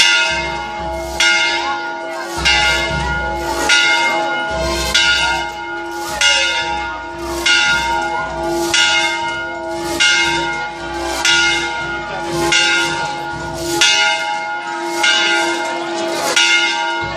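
Church bell tolling steadily, about one stroke every second and a quarter, each stroke hanging on in a long ringing hum.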